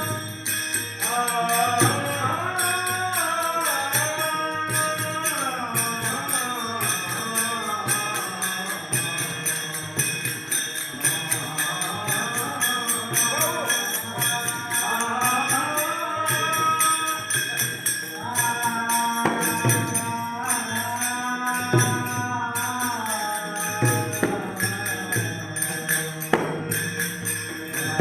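A Marathi devotional bhajan: a voice sings a long, gliding melody over steady metallic jingling percussion that keeps a fast, even beat.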